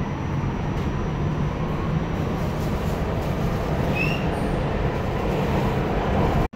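Steady running noise of a New York City subway car in motion, heard from inside the car, with a brief high squeak about four seconds in. The sound cuts off abruptly just before the end.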